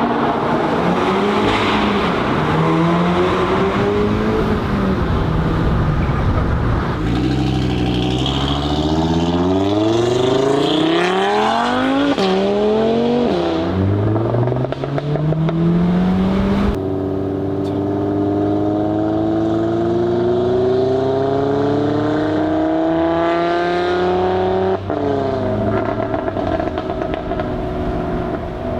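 Audi RS3's turbocharged 2.5-litre five-cylinder engine, fitted with an aftermarket IROZ downpipe, revving and accelerating hard: the pitch climbs, drops back at gear changes, then rises in one long pull. The sound changes abruptly about seven and seventeen seconds in.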